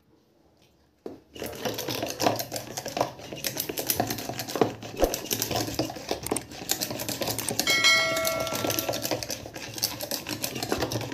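Push-down spinning whisk rattling and clicking rapidly as it beats ghee and sugar in a plastic bowl, its wires scraping the bowl; it starts about a second in.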